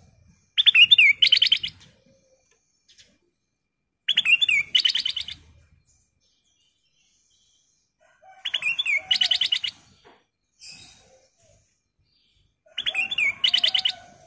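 Ruby-throated bulbul (kutilang emas) singing four short phrases about four seconds apart. Each phrase is a couple of slurred whistles followed by a quick run of bright notes.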